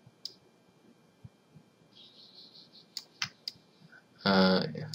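A few scattered, sharp computer mouse clicks, with a brief wordless voiced 'uh' near the end.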